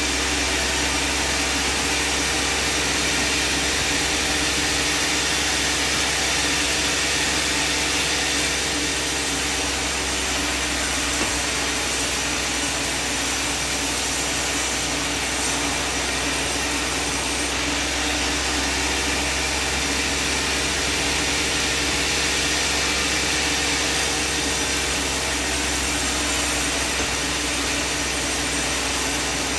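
Sawmill running steadily, its engine and blade sawing through a large timber. A hum in its sound drops away about a third of the way through and returns later.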